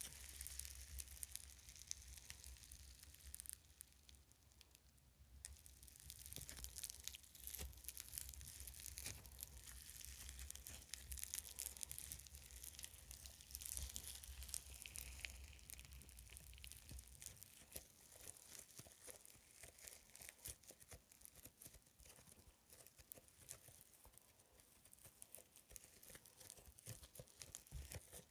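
Fluffy foam slime being squeezed, stretched and pressed between fingers, giving a soft, dense crackling of fine sticky pops and tearing.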